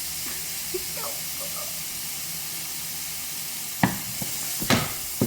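Diced onion sizzling steadily in a hot frying pan, with a few knocks of a utensil against the pan near the end.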